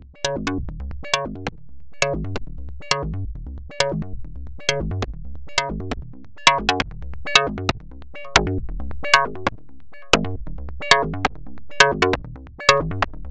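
Electronic music playing back from a Reason project: a sequenced synthesizer pattern of short, sharp notes repeating at a steady tempo over a sustained low bass.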